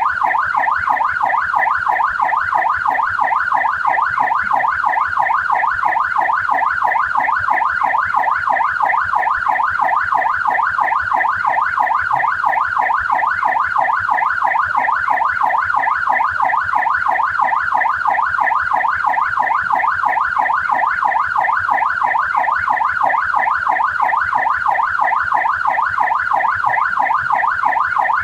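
Australian police car siren on its yelp setting: a fast, steady, continuous up-and-down wail that repeats evenly without a break.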